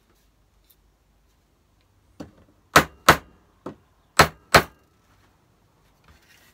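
A hammer striking galvanized sheet steel laid over a plywood form: six sharp metallic blows in quick succession starting about two seconds in, the loudest in two close pairs, each with a brief ring.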